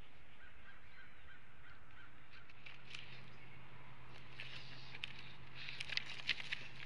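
Sticks crackling and snapping in a bald eagle's stick nest as the eagle moves about and handles a stick, with a cluster of sharp clicks over the last couple of seconds. Faint honking calls of distant birds sound in the first two seconds, and a steady low hum starts about midway.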